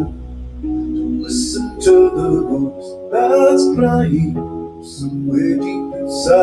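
A woman singing into a handheld microphone over long held keyboard chords.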